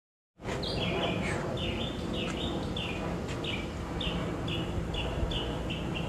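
A bird chirping in a series of short notes, each falling in pitch, that come faster and faster toward the end, over a steady low rumble. The sound cuts in abruptly about half a second in, after dead silence.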